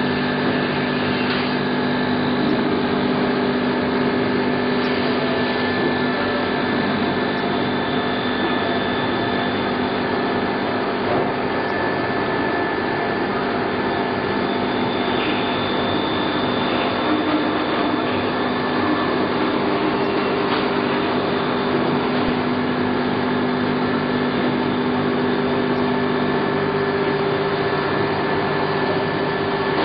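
Straight knife blade grinder running, its motor-driven cup grinding wheel grinding along a long straight blade under a coolant stream. The sound is a steady machine noise with several held tones and no breaks.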